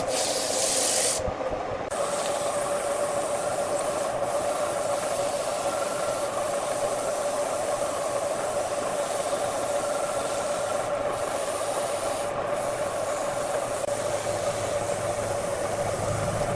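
Wood lathe running with a steady hum while the spinning workpiece is sanded, a continuous rubbing hiss that briefly drops away about a second in.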